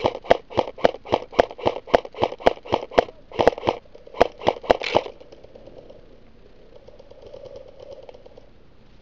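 Airsoft rifle firing a rapid string of single shots, about three to four a second, for some five seconds, then stopping.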